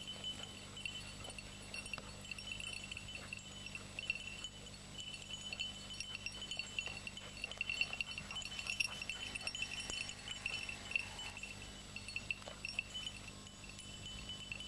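A small bell on a hunting dog's collar jingling continuously as the dog runs through scrub, loudest in the middle and fading near the end.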